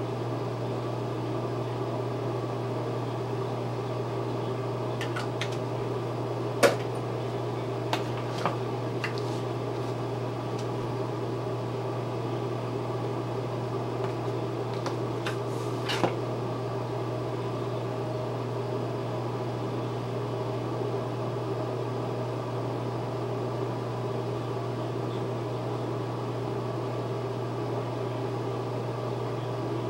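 Steady low mechanical hum, like a small motor or fan running, with a few light clicks and taps over it, the sharpest about seven seconds in and another around sixteen seconds.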